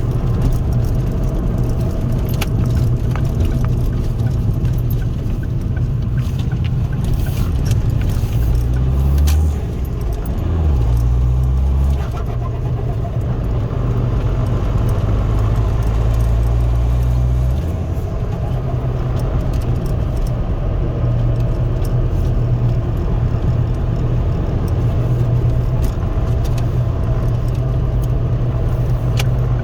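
Remapped Ford Focus 1.8 TDCi four-cylinder turbodiesel running under way, heard from inside the cabin with road noise. The engine note drops and changes pitch a few times, about a third of the way in and again past the middle, as with gear changes, with light rattles and clicks over the top.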